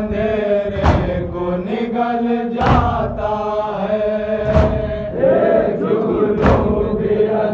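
Voices chanting a noha in long, drawn-out lines, kept in time by a sharp beat about every two seconds, four beats in all.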